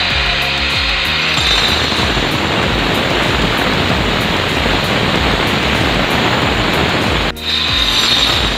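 Handheld angle grinder cutting through a granite countertop: a loud, steady grinding noise with a high whine. It cuts off for a moment about seven seconds in, then resumes at once.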